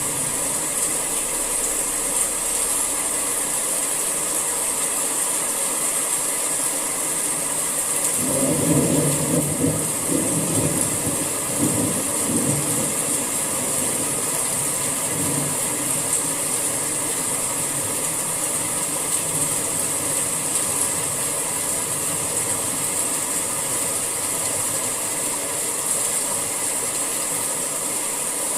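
Steady summer rain falling, an even hiss. About eight seconds in, a low rumble rises for a few seconds and fades.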